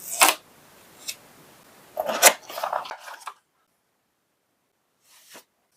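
Unboxing packaging being handled: a few sharp clicks and crackling rustles over the first three seconds or so, then a pause and a brief faint rustle near the end. No steady motor sound; the vacuum is not running.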